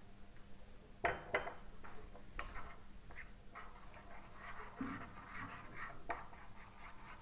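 Metal spoon stirring a thin flour-and-water paste in a ceramic bowl: faint scraping with a few light clinks of the spoon against the bowl.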